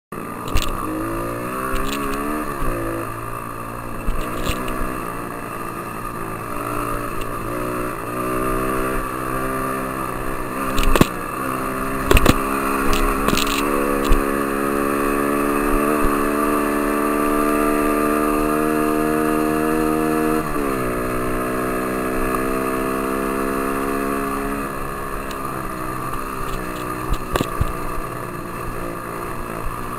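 Dirt bike engine heard from on board, revving up and shifting through the gears, holding high revs, then dropping sharply about two-thirds of the way in. A few sharp knocks from the ride cut in around the middle.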